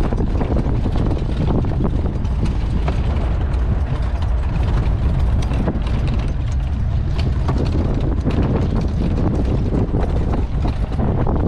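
Safari vehicle driving over a rough dirt track: a steady engine and tyre rumble with frequent knocks and rattles from the bodywork over bumps.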